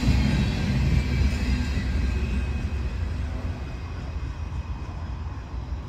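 Freight train rumbling and clattering over the rails as its last car passes and draws away, the low rumble fading steadily.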